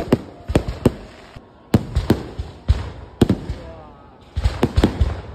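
A run of sharp, irregular cracks and pops, sometimes several within half a second, with a voice faintly behind them.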